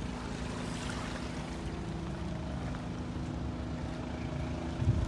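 Steady low hum of a running engine or motor over a constant outdoor rumble.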